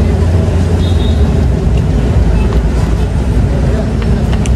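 Steady low rumble of road traffic, with a few light clinks of a metal spoon and fork against a bowl near the end.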